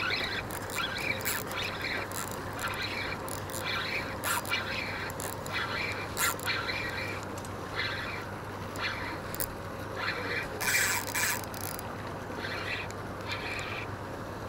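Spinning fishing reel being handled and turned close to the microphone: irregular clicks, rattles and scrapes of the reel and rod, over a steady low hum.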